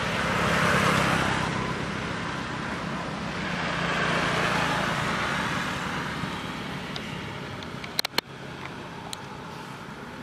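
Motorbikes passing on a road: two rise and fade, one loudest about a second in and another about four and a half seconds in. About eight seconds in come two sharp clicks a fraction of a second apart.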